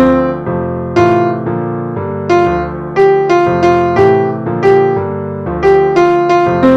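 Background music: a keyboard melody of struck notes, about two a second, each fading away after it is struck.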